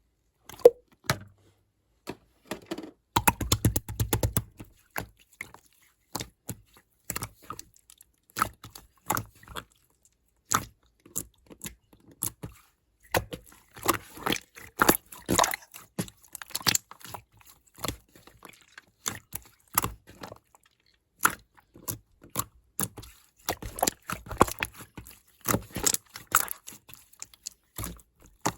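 Slime being squished, stretched and poked by hand, giving irregular sticky pops and clicks, with a quick run of rapid clicking about three seconds in.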